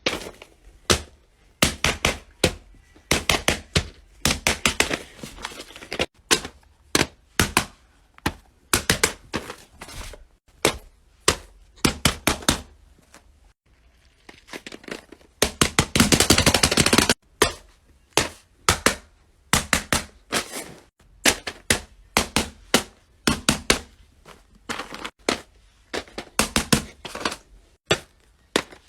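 Plastic fidget toys clicked and popped by hand: irregular runs of sharp clicks, with a brief pause and then a dense clatter of clicks about halfway through.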